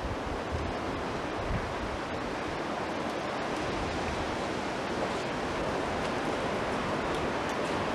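Steady rushing roar of an F5 tornado's winds close by, slowly growing louder, with wind buffeting the camcorder microphone.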